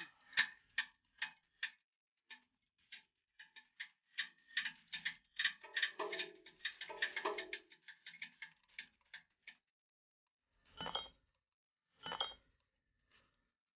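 Ratchet wrench clicking in short runs, faster in the middle, while a fitting at the hub of a rooftop exhaust fan's impeller is worked. Two louder knocks follow near the end.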